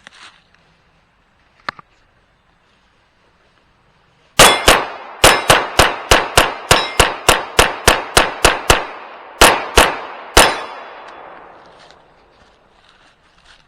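Rapid semi-automatic gunfire: about twenty shots in six seconds, slowing to three spaced shots near the end, with steel targets clanging as they are hit and an echo trailing off afterwards.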